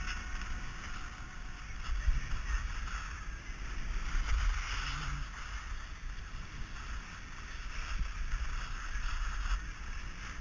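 Skis hissing and scraping over snow on a downhill run, with wind rumbling on the microphone; the rush rises and falls several times.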